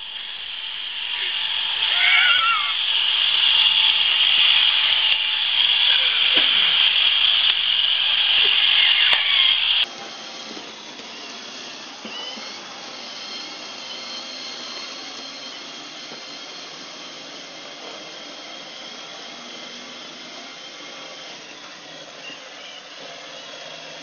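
Roomba robot vacuum running, a steady whirring whine from its motor and brushes. About ten seconds in the sound drops suddenly to a quieter, steady hum of a robot vacuum running.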